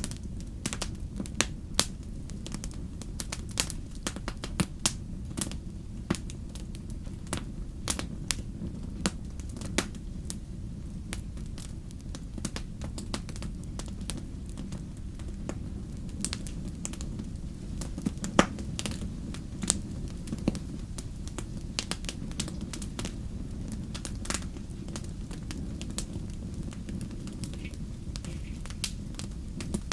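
Campfire crackling, with frequent irregular sharp pops and snaps over a low, steady rumble of burning.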